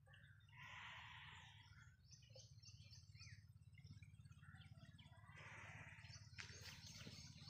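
Faint birdsong from the trees: scattered short chirps and calls, with a quick run of repeated high notes about two seconds in, over a low steady hum.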